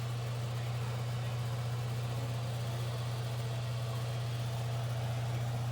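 A steady low mechanical hum that holds the same level and pitch.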